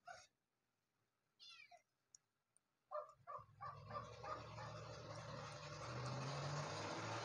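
A few short animal calls, one of them sliding in pitch, then about three seconds in a motor starts running with a steady low hum and hiss that grows louder.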